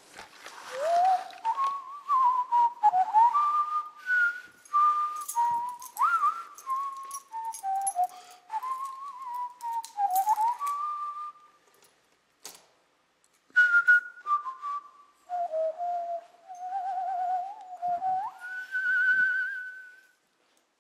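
A person whistling a tune: a single clear line of notes stepping and sliding up and down in phrases, with a short break partway through. It ends on a long, wavering high note. A few clicks fall between phrases.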